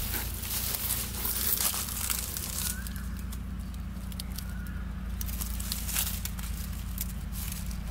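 Dry leaves crackling and rustling in scattered small clicks over a low steady hum, with two short faint bird chirps about three and five seconds in.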